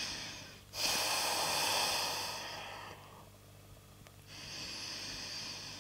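A person taking slow, deep breaths, each breath an audible rush of air: one ends just under a second in, a long breath of about two seconds follows, then a short quiet pause before another breath starts.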